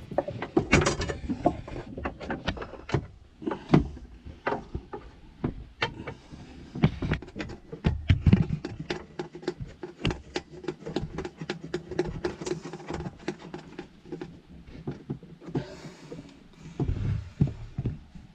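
Hand-work noise: irregular clicks, taps and knocks as tools and copper gas-pipe fittings are handled, several a second.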